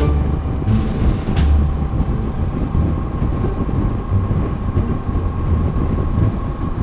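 Kawasaki Versys 650's parallel-twin engine running at a steady cruising speed, with a constant whine held throughout, under heavy wind and road rumble on a helmet-mounted microphone.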